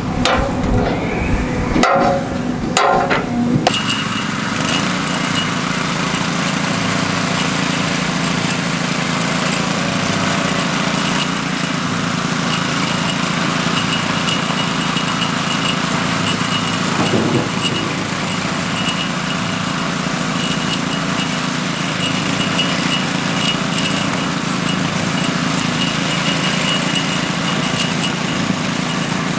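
A few sharp knocks in the first seconds, then the small petrol engine of a walk-behind power trowel running steadily while it finishes a concrete surface.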